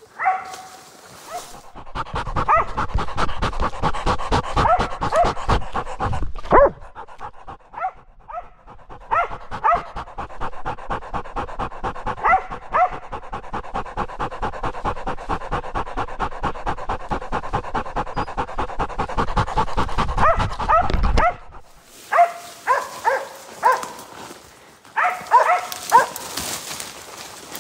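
West Siberian laika panting hard and fast right at the collar-mounted camera, with yelps and barks mixed in. From about 22 seconds the panting stops and the dogs bark in short bursts, baying at a bear treed above them.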